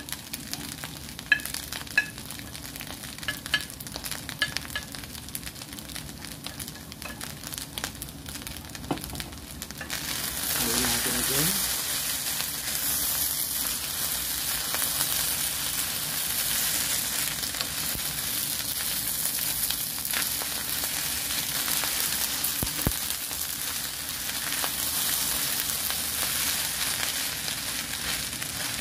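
Fried rice in a nonstick frying pan, stirred and turned with a wooden spatula. For about the first ten seconds there are light clicks and taps as sliced boiled egg is pushed in and mixed; then a steady sizzle grows louder and holds.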